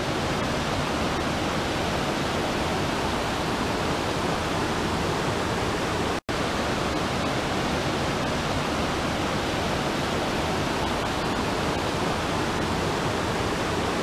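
Steady rush of falling water from Waimoku Falls, a 400-foot waterfall. The sound cuts out for an instant about six seconds in, then resumes unchanged.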